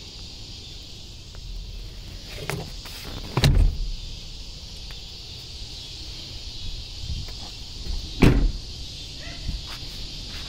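Two heavy thumps about five seconds apart, the second the louder: the cab doors of a 2013 Ford F-250 Super Duty crew-cab pickup being shut, over a steady high background hiss.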